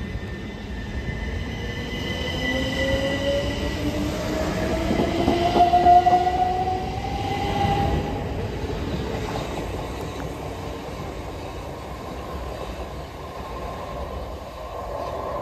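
Class 377 Electrostar electric multiple unit pulling out and accelerating past, with an electric whine that rises in pitch as it gathers speed over a rumble of wheels on the rails. It is loudest about six seconds in, then fades as the train draws away.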